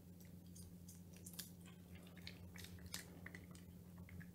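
A cat chewing a treat: a scatter of faint, crisp clicks of biting and crunching.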